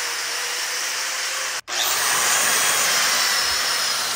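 Small electric angle grinder with an abrasive disc running steadily. After a brief break in the sound about a second and a half in, it grinds against a steel motorcycle frame tube, cleaning the surface ahead of welding.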